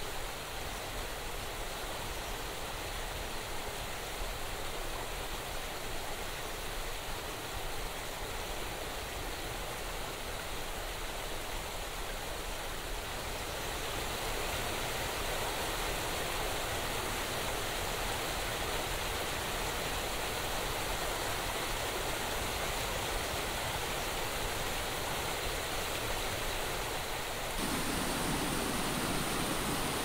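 Steady rush of water from a small cascading waterfall and stream over rocks. It gets a little louder about halfway through and again near the end.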